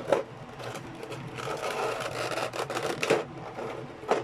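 Handling of the figure's plastic packaging: sharp clicks near the start, about three seconds in and near the end, with crinkly rustling in between.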